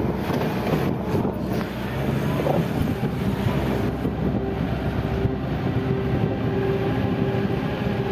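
Off-road vehicle driving on a rough dirt track: the engine runs steadily under wind noise on the microphone, with the engine's hum growing more distinct in the second half.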